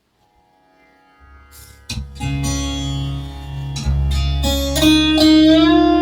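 Ambient music played over a room's surround speaker system, fading in from near silence: faint held tones, then a low drone just over a second in, then plucked string notes from about two seconds in, with held notes gliding in pitch near the end.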